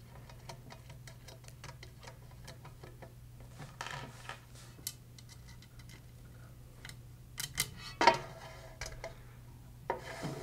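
Small metal clicks and taps as hex screws, a plastic spacer and a standoff are handled and fitted by hand through the holes of a perforated aluminium channel, with a louder clatter of parts about eight seconds in.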